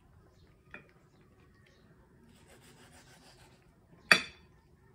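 Faint rubbing and handling sounds as a baby monkey eats mango slices at a table, with one sharp, loud, brief sound about four seconds in.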